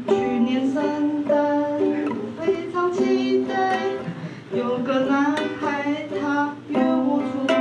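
A woman singing a song in Mandarin with held, melodic notes, accompanying herself with light strumming on a ukulele.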